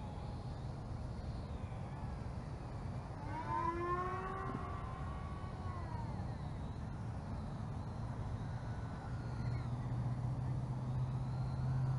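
Small electric motors of a foam RC C-17 model plane whining in flight, the pitch sliding up and down and loudest about four seconds in. A low rumble of wind on the microphone lies underneath, with a steady low hum joining from about nine seconds in.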